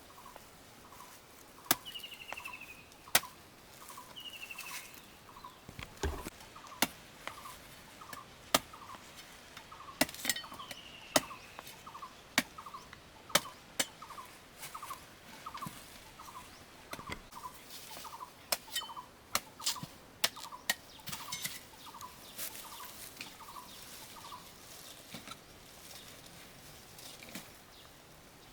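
A bird calling in a steady series of short repeated notes, a little under two a second, with a few higher falling chirps. Sharp clicks and knocks are scattered throughout.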